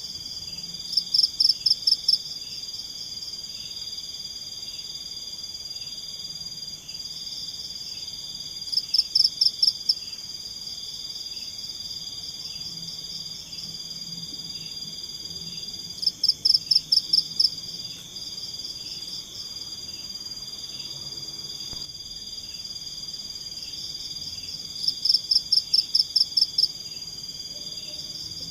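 Night-time tropical forest chorus: a steady high insect buzz with a quicker ticking call beneath it. Four times, roughly every eight seconds, a much louder call of about seven rapid pulses sounds over it for a second or so.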